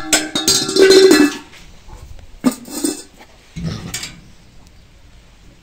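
Alaskan Malamute vocalising in moaning 'woo' calls: one long call, then two shorter ones about two and a half and three and a half seconds in. They are mixed with sharp metallic clanks from the kennel's metal bars.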